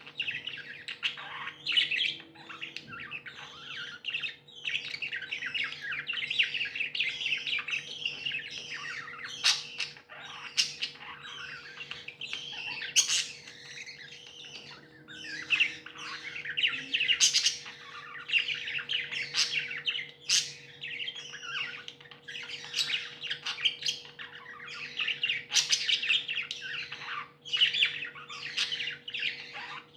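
A group of pet budgies chirping and chattering continuously, with sharp, loud squawks breaking out every few seconds.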